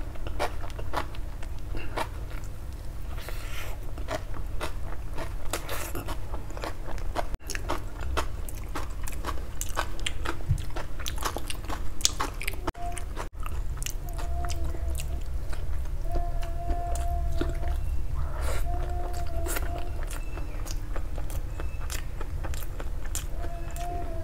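Close-miked eating: bites into fried food followed by wet chewing, with many small crunches and crackles. In the second half there are a few brief hummed tones.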